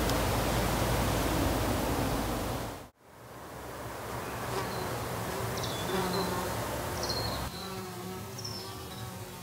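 Steady rushing noise that cuts off abruptly about three seconds in, followed by insects buzzing in a forest, with a few short high bird chirps scattered through the rest.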